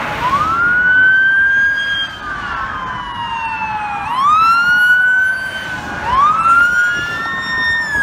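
Several police car sirens wailing at once and overlapping, each rising quickly and then sliding slowly back down, over the noise of passing traffic.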